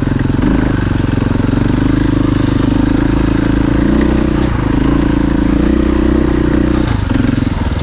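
Dirt bike engine running at a fairly steady speed, its note dipping briefly three times.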